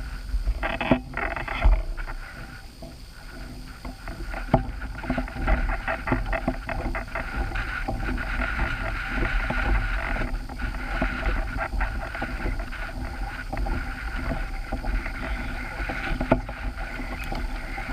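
Water splashing and lapping, with many small clicks and a few sharper knocks.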